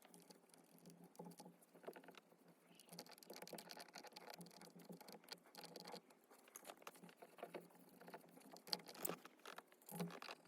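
Faint scrubbing and scratching of a cotton swab on plastic steering-wheel buttons, rubbing off a sticky soft-touch coating, with many small irregular clicks and a couple of louder ticks near the end.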